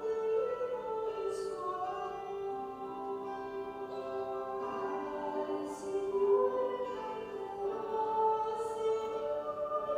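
Slow choral music with long held sung notes moving together in harmony.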